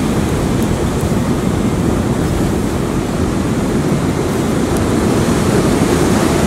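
Surf washing on the shore mixed with wind buffeting the microphone: a steady, deep noise with no break.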